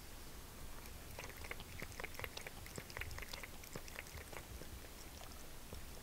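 Cat lapping water, a quick run of small wet clicks, several a second, that starts about a second in and stops after a few seconds.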